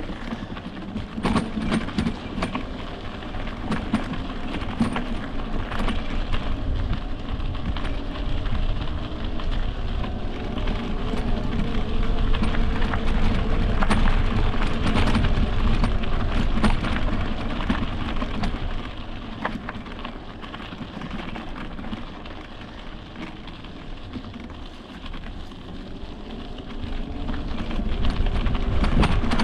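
Electric mountain bike riding over a dirt trail: a steady rush of tyre and trail noise with scattered rattles and clicks. A faint whine from the motor wavers up and down in the middle and again near the end.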